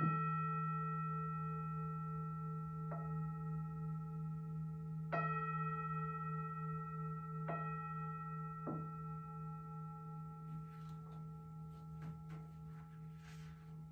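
Tibetan singing bowl struck four times, each strike ringing on in a long, wavering hum that carries over into the next. Faint rustling near the end.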